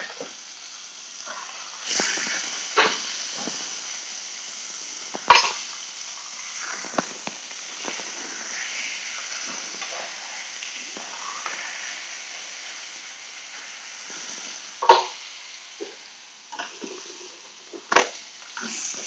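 Steak sizzling steadily as it fries in a metal pan, with a few sharp knocks of a utensil against the pan as the meat is turned.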